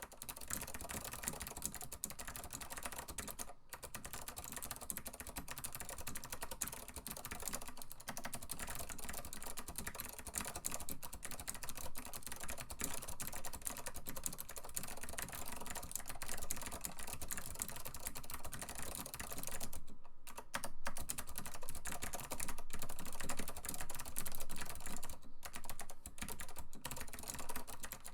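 Acer KB-102AS keyboard with clicky ALPS SKCM Blue switches, typed on fast and continuously, a dense stream of sharp key clicks with a few brief pauses.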